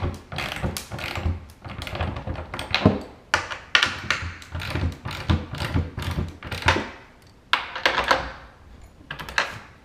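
Hand ratchet clicking in quick runs as bolts are tightened, with metallic knocks between strokes; it thins to a few single clicks near the end.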